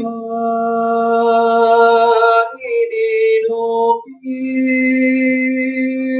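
Man singing long, held vowel notes in a wordless, chant-like 'light language' song, the pitch shifting between notes with short breaks about two and a half and four seconds in.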